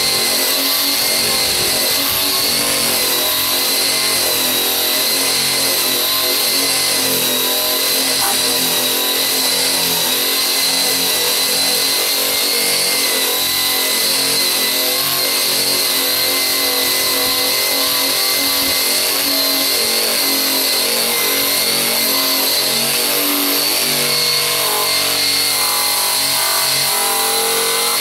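Eastwood Contour SCT electric surface conditioning sander running steadily with a high whine, its abrasive drum grinding old paint off a car's sheet-metal body panel.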